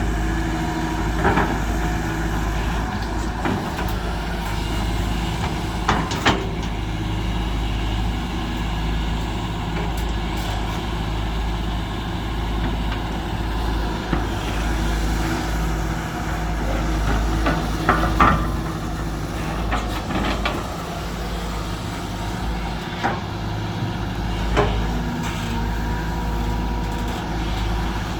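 Diesel engines of a SANY SY215C excavator and six-wheel dump trucks running steadily while the excavator digs and loads, with scattered sharp clanks and knocks, the strongest about six seconds in and around eighteen seconds in.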